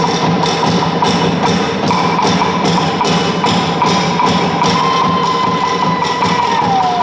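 Fast Polynesian drum music played on wooden slit drums, with a steady, rapid beat of sharp wooden strokes. A held high tone runs through it and slides down in pitch near the end.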